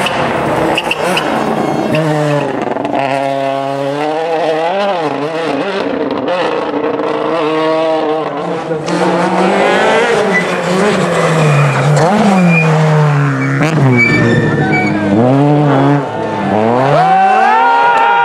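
Rally cars' engines revving hard through the stage, a Toyota Yaris WRC and then a Peugeot 208 rally car. The pitch climbs and drops repeatedly with throttle and gear changes.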